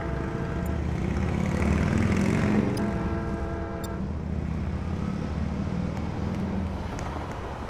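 NJ Transit train sounding its horn twice, two blasts of about a second each, over the low rumble of the train as it pulls into the station.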